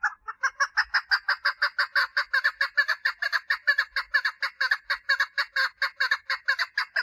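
Female chukar partridge calling for a mate: a long, fast, even run of short repeated notes, about five or six a second.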